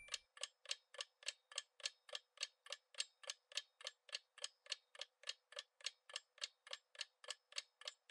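Clock-style ticking sound effect of a quiz countdown timer, sharp even ticks at about three to four a second.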